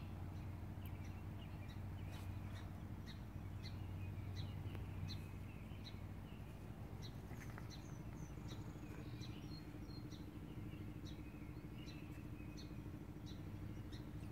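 A small bird chirping the same short high note over and over, about once or twice a second, with a few different higher calls briefly in the middle. A low steady hum runs underneath.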